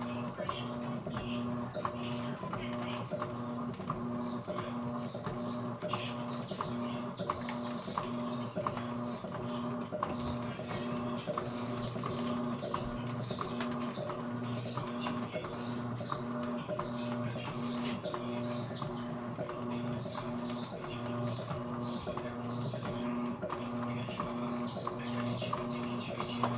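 Washing machine running, with a steady hum and a low tone that pulses about twice a second, under constant chirping of small birds.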